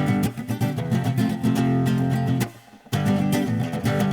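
Guitar strummed in a rhythmic chord accompaniment, with a short break about two and a half seconds in before the strumming picks up again.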